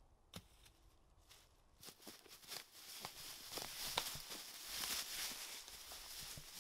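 Feet scuffling and crunching through dry leaf litter as two people grapple, faint at first and growing louder and busier from about two seconds in, with one sharp snap about four seconds in.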